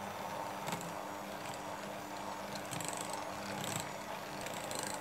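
Electric hand mixer running steadily with a constant motor hum, its beaters whipping mascarpone and cream cheese in a glass bowl.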